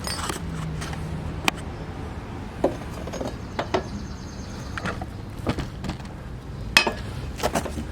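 Scattered clicks and knocks as a lawn mower blade is handled and fitted back onto the mower's blade spindle.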